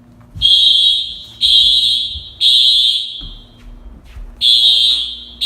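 Dormitory fire alarm horns sounding the temporal-three evacuation signal: three loud, high-pitched tones a second apart, a pause, then the next group of three starting.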